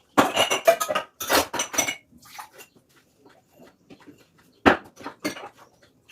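Dishes and cutlery clattering and clinking as they are handled, with a quick run of clinks over the first two seconds, lighter scattered clicks after, and a single louder knock a little before the end.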